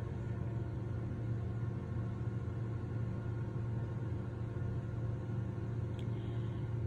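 Steady low hum, an even machine-like drone with no distinct events.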